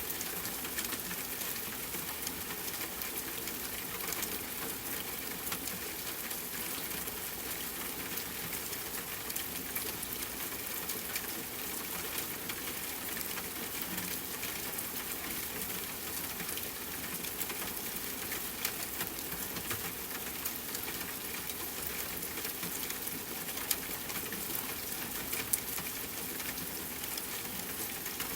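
Steady rain falling on a tent mixed with campfire crackling: an even hiss with dense small ticks, and a couple of louder pops near the end.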